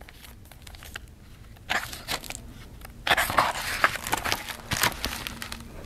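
Hardcover picture book being opened and its pages turned, paper rustling and crackling in bursts, loudest from about three to five seconds in.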